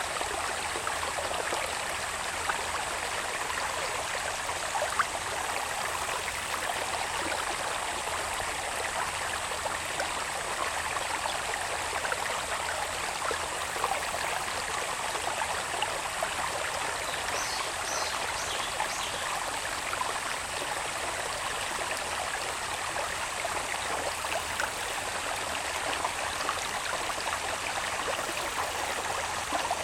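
Small hillside irrigation channel babbling steadily, under a continuous thin high insect trill. A few brief high chirps come about halfway through.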